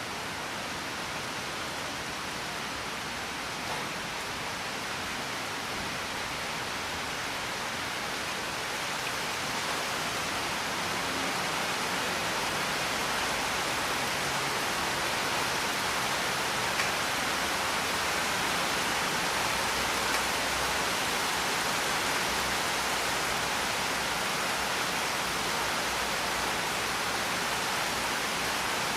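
Steady rain: an even hiss with a few faint drop ticks, swelling slightly over the first ten seconds or so.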